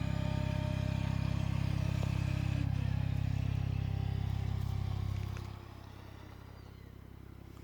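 A vehicle engine running with a steady, pulsing low rumble that falls away sharply about five and a half seconds in.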